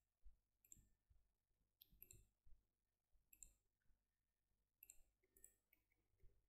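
Faint computer mouse clicks, several at irregular intervals, some in quick pairs, over a very low background hum.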